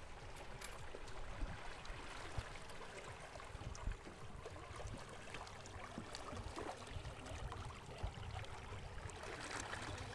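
Steady rush and splash of water along the hull of a small aluminium electric boat moving through a canal.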